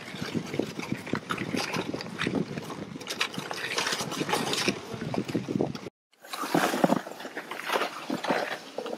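Footsteps crunching through fresh snow and a plastic sled scraping over it as it is pulled along. The sound cuts out briefly about six seconds in, then the crunching and scraping resume.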